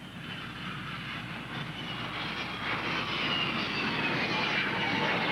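Jet fighter on landing approach, its engine whine growing steadily louder while the high tones slowly fall in pitch.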